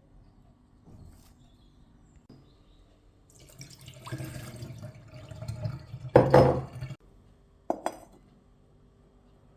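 Kitchen sounds: water running for a few seconds, with a loud clink of dishware about six seconds in and another sharp clink shortly after.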